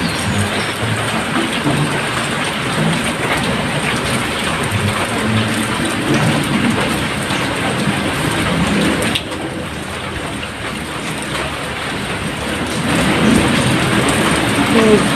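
Heavy rain pouring with a steady hiss. It eases a little about nine seconds in and grows heavier again near the end.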